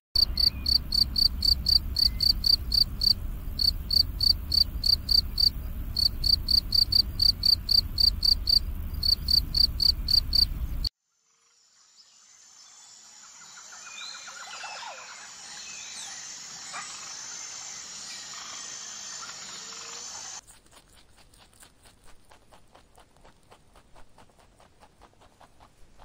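Field cricket chirping, a long run of rapid shrill chirps, about three a second with a few short pauses, that cuts off suddenly about eleven seconds in. A quieter mixed background fades in after it. Near the end come faint rapid ticks of a rabbit nibbling hay.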